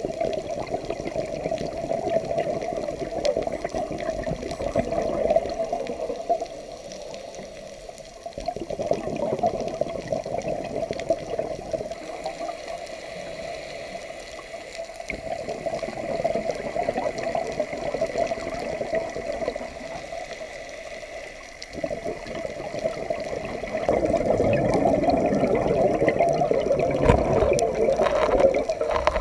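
A scuba diver's regulator heard underwater: four long rushes of exhaled bubbles, with quieter inhalation pauses between them.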